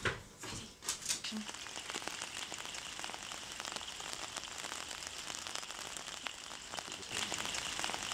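Rain pattering steadily, a dense hiss of fine drops, a little louder near the end, with a few sharper knocks in the first second.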